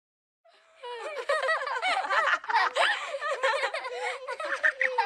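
Several children's voices laughing and chattering together, starting about half a second in after a brief silence.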